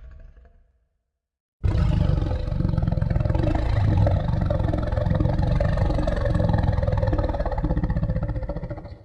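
Giant monster roar sound effect of Nimona's Godzilla form: one long roar that starts suddenly about a second and a half in, holds for about seven seconds and fades out near the end.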